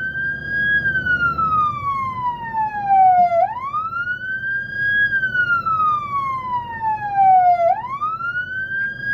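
Fire engine's siren sounding a slow wail: the pitch climbs over about a second and a half, then falls slowly for about two and a half seconds, repeating about twice.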